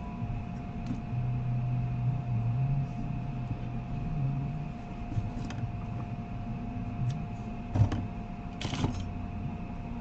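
A steady machine hum with a faint high whine running under it, broken by a few short scrapes and clicks of hands handling a laptop logic board, the loudest a little before and after the eight-second mark.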